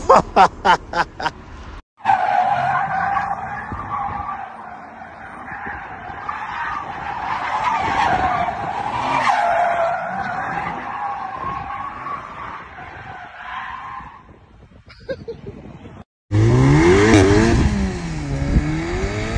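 Car tyres squealing in a long wavering squeal as a car drifts round a wet roundabout, with the engine running underneath. About three-quarters of the way through it cuts to a car engine revving up and down as a hatchback is driven hard on grass.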